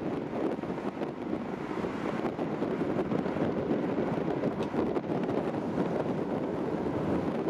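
Wind buffeting the microphone over a steady, distant rumble of a train passing along the far bank of the river.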